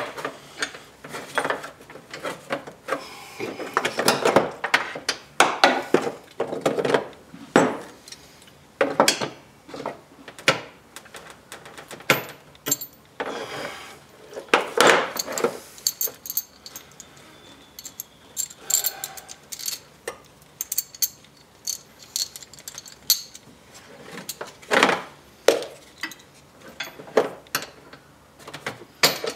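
Hand ratchet and socket clicking on a harness mounting bolt, with irregular metallic clinks and clanks of tools and hardware being handled.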